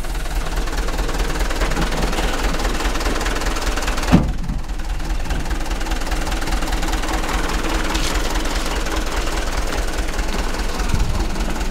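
Dump truck's diesel engine idling with a steady, low, even throb. A single sharp thump about four seconds in.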